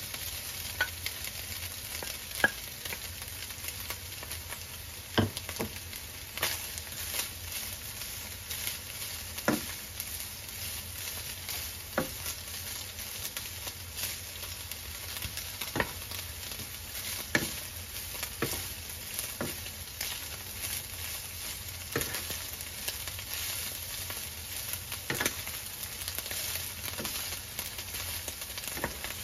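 Beef strips frying in oil with onions and garlic in a nonstick pan, sizzling steadily, with a wooden spoon knocking and scraping against the pan in sharp, irregular clicks every couple of seconds as it is stirred.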